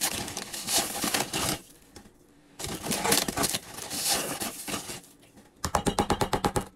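Granulated sugar pouring from a large paper sugar bag: a crackly hiss of grains and crinkling paper, in two pours. Near the end comes a quick, even run of ticks, about ten a second.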